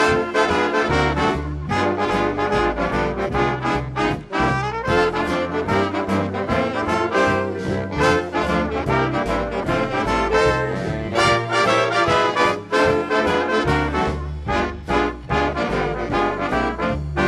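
Big band swing music with a brass section of trombones and trumpets playing over a steady beat.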